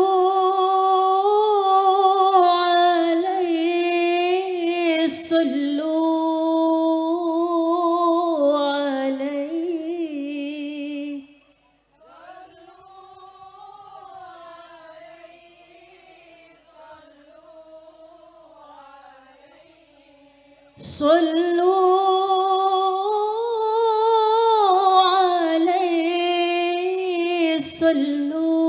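A woman singing a slow, unaccompanied melismatic line into a microphone, with long held notes that waver in pitch and no drum beat. About twelve seconds in the voice drops to much softer singing for roughly nine seconds, then the full voice comes back.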